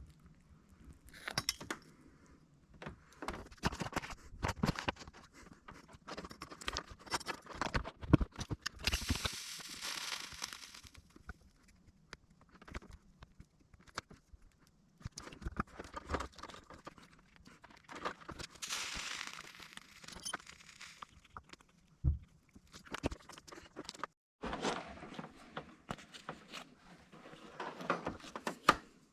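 Hands working on a car's wiring harness: irregular clicks, taps and rustling of cables and plastic, with two longer rasping hisses of about two seconds each, about nine seconds in and again near twenty seconds.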